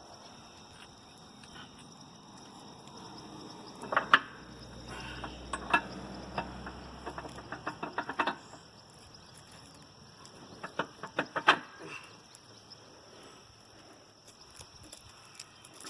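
Irregular metal clanks and knocks as clamps and bolts are fitted to a tractor's dual wheel rim, in short clusters with pauses between them.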